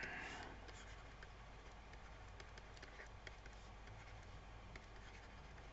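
Near silence with faint, scattered small clicks and taps from handwriting being drawn on a computer with a pointing device.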